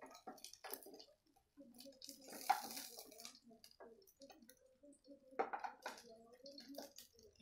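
Quiet clinks and scrapes of a spatula in a kadhai as fried chicken drumsticks are lifted out of the oil, with a brief hiss and click about two and a half seconds in and a sharper clack about five and a half seconds in.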